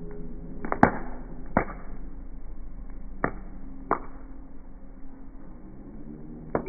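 About five sharp taps at irregular intervals, over a faint low hum.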